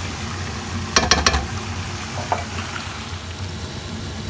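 Cooked beef chunks sizzling as they are fried in mustard oil in a steel pot and stirred with a spatula. There are a few sharp clacks of the spatula against the pot about a second in, and another a second later.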